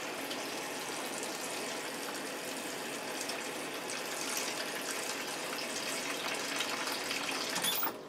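Kitchen tap running cold water into a plastic microwave pasta cooker full of elbow macaroni: a steady rush of water that shuts off suddenly near the end.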